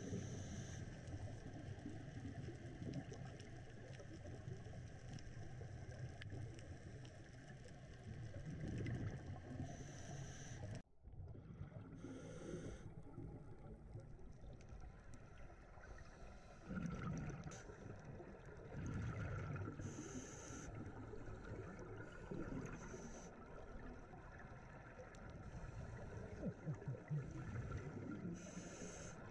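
Underwater sound through a camera housing: a low muffled rumble of water, with a scuba diver's regulator breathing, a short hiss every few seconds and bubbling exhalations.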